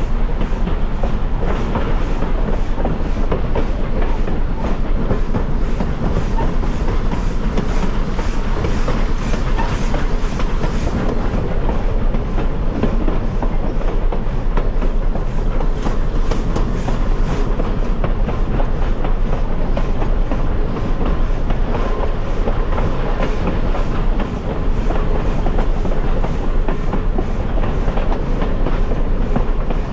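Train cars rolling along the track, wheels clacking over the rail joints over a steady running rumble.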